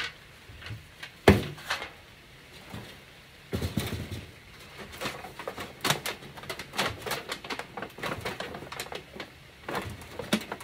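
Thin aluminum sheet crinkling and crackling in irregular bursts as it is handled and pressed by hand onto a wire-framed form, with one sharp knock about a second in.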